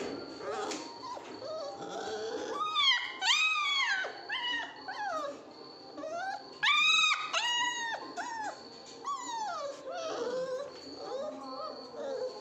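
Mudhol hound puppies whining and yelping: a run of high cries that rise and fall in pitch, loudest about three and seven seconds in.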